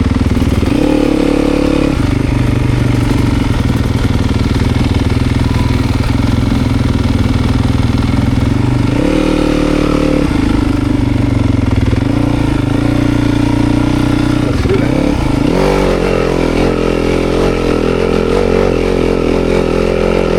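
Off-road motorcycle engine running under throttle, close and loud. Its note steps up and down a few times, then rises about three-quarters of the way through and holds higher to the end.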